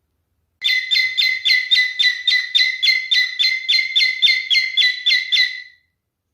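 Male cockatiel calling: a rapid run of short, identical high chirps, about four a second, starting under a second in and stopping sharply after about five seconds.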